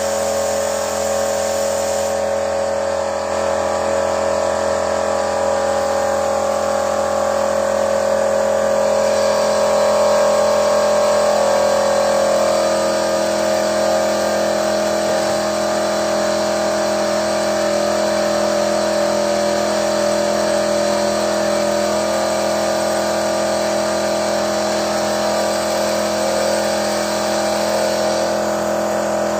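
Car engine running steadily, with a constant hum and whine that shifts slightly in pitch about eleven seconds in.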